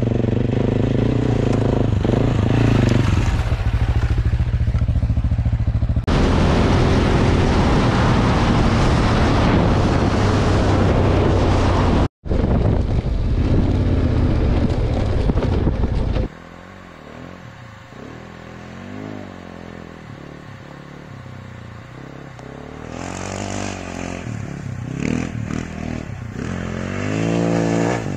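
Off-road motorcycle engines running. For the first half a loud rushing wind noise on the microphone lies over a steady engine drone. Then the engine is quieter and revs up and down repeatedly, with a louder rev near the end.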